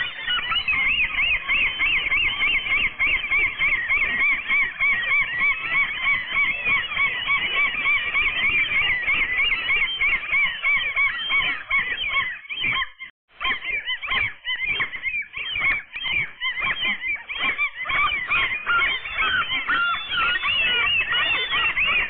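A group of gulls calling without pause: many rapid, overlapping high calls that break off briefly about 13 seconds in and then resume.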